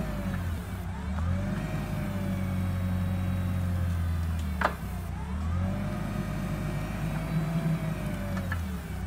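Yale Veracitor 60VX forklift's engine running and revving up twice for a few seconds each as the truck drives back and forth, with a whine that rises and levels off alongside each rev-up. One sharp click about halfway through.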